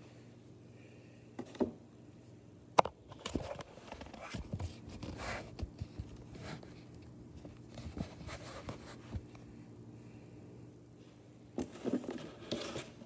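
Objects being handled on a counter: a couple of sharp clicks, then scattered scraping, knocking and rustling that picks up near the end, over a steady low hum.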